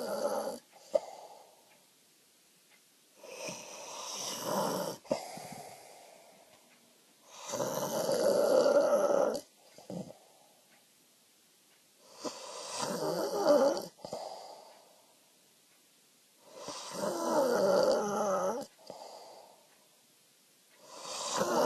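A sleeping person snoring loudly and regularly, with a snore roughly every four and a half seconds. Each snore lasts about two seconds and is followed by a softer breath out.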